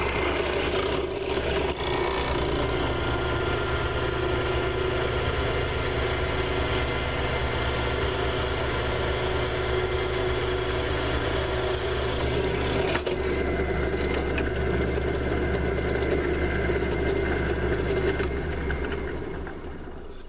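Harbor Freight mini lathe running with a steady motor hum, then switched off and winding down near the end.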